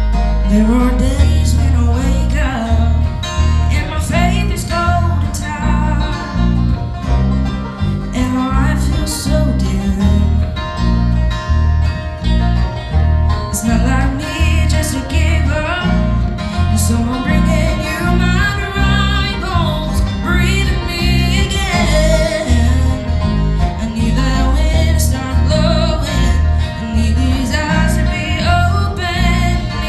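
Live country-gospel music in a bluegrass style: singing over plucked acoustic strings, with a steady low beat.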